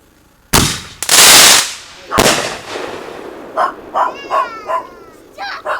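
Consumer fireworks going off: a sharp bang about half a second in, a louder blast of noise about a second in, and another bang a little after two seconds, each dying away. A dog then barks several times in quick succession.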